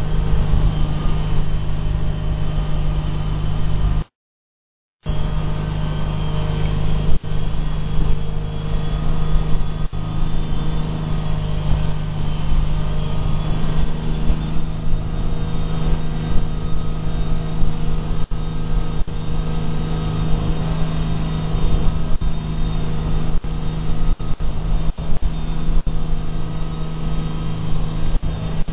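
Boat engine running steadily at a constant speed, with a strong low hum and occasional short knocks. The sound drops out for about a second about four seconds in.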